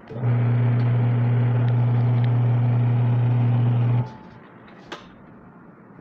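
Newly replaced washing-machine wash motor running on a test, a steady electrical hum that starts just after the opening and cuts off about four seconds in, in the stop-start spells of the agitation cycle; the motor is working again after the repair. A single sharp click about a second after it stops.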